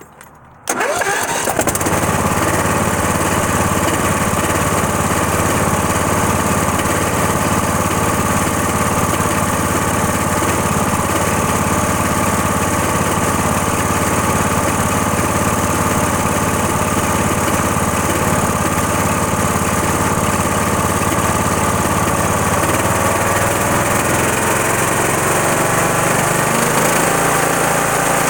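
A small engine starts suddenly less than a second in and runs steadily, its pitch shifting near the end. The owner calls it a bad motor.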